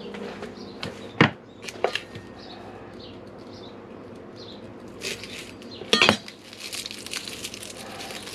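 Kitchen items being handled and set down on a counter: a few sharp knocks and clinks, the loudest about a second in and another about six seconds in, with rustling in between.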